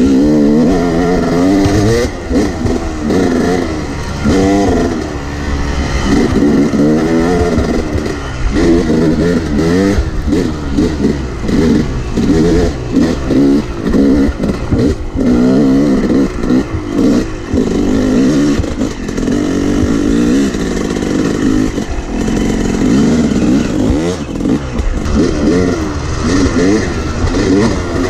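Yamaha 250 two-stroke dirt bike engine heard close up while riding, its pitch rising and falling over and over as the throttle is opened and shut through the turns.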